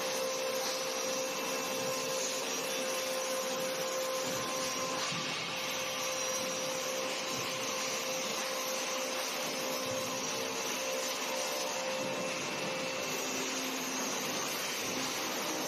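Angle grinder running steadily, grinding the welds on a steel tube frame: a constant whine over an even hiss.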